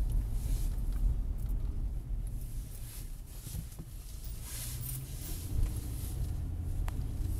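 Car being driven, heard from inside the cabin: a steady low engine and road rumble, with tyre and wind hiss swelling briefly about halfway through.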